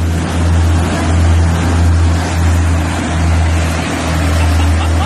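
Motorboat running at speed: a steady low engine drone over the rush of the churning wake.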